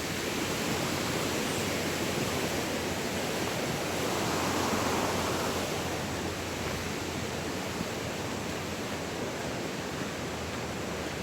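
Steady rush of flowing mountain water, a river or waterfall, swelling slightly about halfway through.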